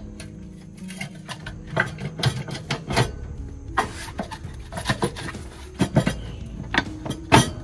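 Irregular metallic clicks, knocks and scraping of hand tools working on a semi truck's air-suspension fittings beside the air spring.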